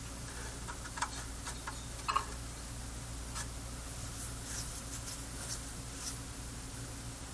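Small clicks and light scratching from parts and tools being handled while working inside an amplifier, over a steady low hum. Two sharper clicks come about one and two seconds in, with fainter ticks and scraping later.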